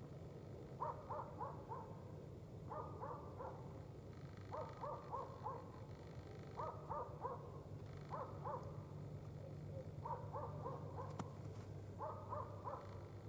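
Faint animal calls: short runs of four or five quick notes, a run about every two seconds, over a low steady hum.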